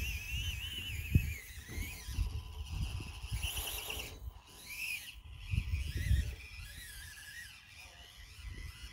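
Axial SCX24 micro crawler's small electric motor and drivetrain whining, the pitch rising and falling with the throttle as it climbs a rock pile. Low rumble and a few thumps underneath.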